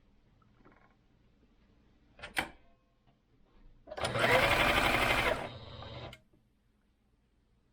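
Singer Advance 7422 sewing machine: a click, then the motor runs for about two seconds on a bobbin-winding attempt, loudest for the first second and a half, then dropping and stopping.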